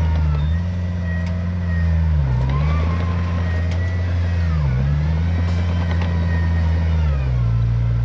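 Heavy-equipment diesel engine running steadily, its revs dipping briefly and recovering about three times, then settling lower near the end.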